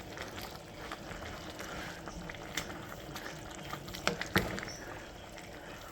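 Pot of soup boiling, bubbling steadily, with a few small knocks, the loudest about four seconds in.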